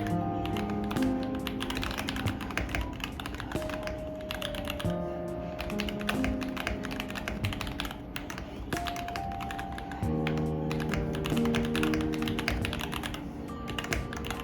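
Fast, irregular typing on a newly built mechanical keyboard: a dense run of keystroke clicks and clacks. Background music with held notes plays underneath.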